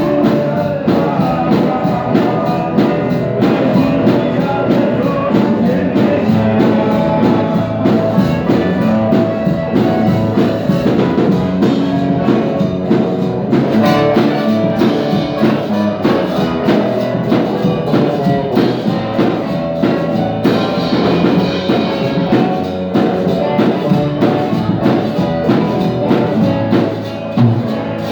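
Band music with drum kit and other instruments playing at a steady beat, tailing off near the end as the song closes.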